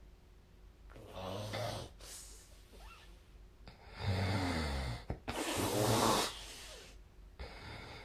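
A sleeping person snoring: two loud, rough, low snores about three seconds apart, each followed by a noisy rush of breath, with quieter breathing in between.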